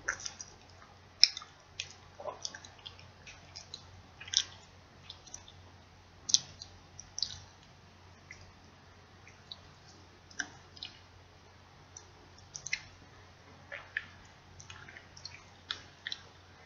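Chewing of Reese's peanut butter cups close to the microphone: irregular wet smacks and mouth clicks, a couple every second, with short gaps between.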